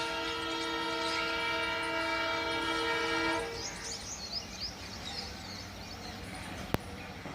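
WDM3D diesel locomotive's air horn blowing a long, steady multi-tone blast that cuts off about three and a half seconds in. Then comes the even rumble of the passing train, with a single sharp click near the end.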